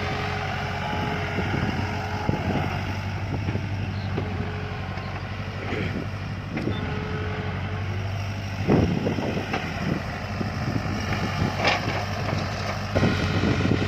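JCB backhoe loader's diesel engine running steadily under work, with scattered knocks and clatter as it cuts into the hillside; the loudest knocks come about nine seconds in and again near the end.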